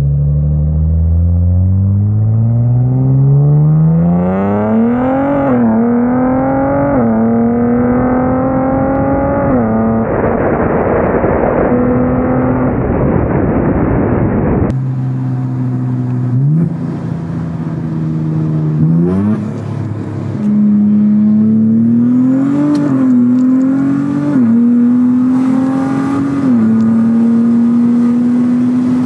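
2023 Nissan Z's twin-turbo V6 accelerating hard through the gears of its 9-speed automatic: the engine pitch climbs and drops sharply at each quick upshift. About halfway through, a second run starts, again climbing and shifting up several times.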